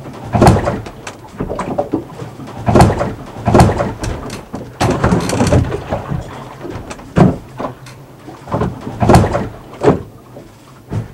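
Waves slapping and banging against the hulls of a Leopard sailing catamaran, heard from inside its cabin. Irregular loud thuds and splashes come every second or so as wind-driven swell runs straight at the boat in an unprotected anchorage, making it rolly and loud.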